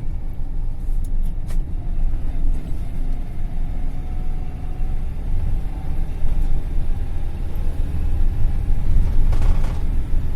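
A GAZelle van moving along a road, heard inside its cabin: a steady low rumble of engine and road noise.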